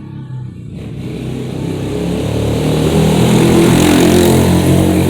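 A motor vehicle passing close by: engine and road noise swell from about a second in to a peak around four seconds, then begin to fade.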